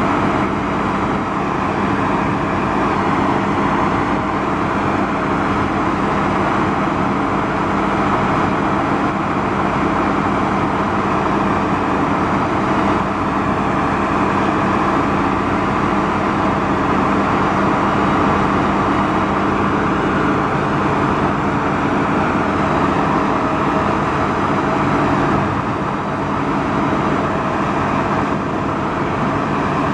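Mack six-cylinder diesel engine of a 1977 Mack RS600L crane truck running steadily at an even speed.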